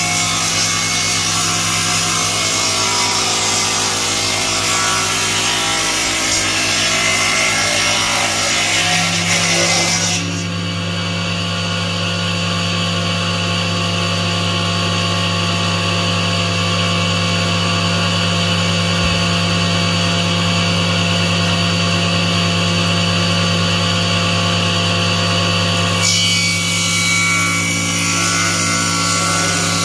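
Homemade table saw built on a thickness planer, its circular blade ripping small pieces of wood over a steady motor hum. About ten seconds in the cutting stops and the motor and blade run free, then the cutting starts again near the end.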